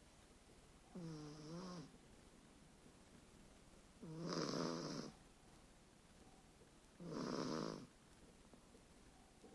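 A young boy snoring in deep sleep: three snores about three seconds apart, each about a second long. The first is a thin pitched tone, and the next two are louder and rougher.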